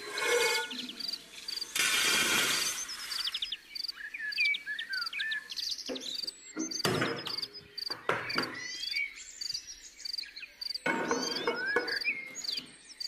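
Birds chirping with a steady high tick repeating about twice a second, under a few brief clatters and rustles of a pot being handled on a gas stove.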